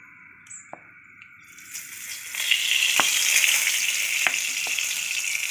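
Cooking oil poured into a hot kadhai, sizzling: quiet at first, then a steady hiss that starts about two seconds in and holds, with a few sharp clicks.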